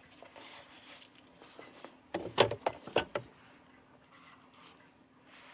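Wooden lattice plant press being opened and handled: a few sharp knocks and clatter of wood about two to three seconds in, the loudest near the start of that cluster.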